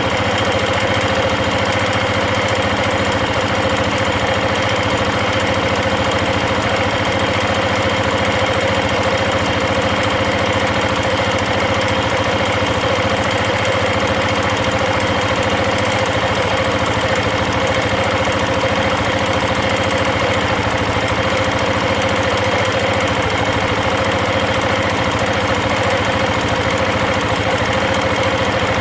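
KTM 690 Enduro's single-cylinder engine idling steadily and warm, with a fast, even metallic chatter from the top end that the owner takes for valve chatter after a rebuild with new rocker arms and re-shimmed valves.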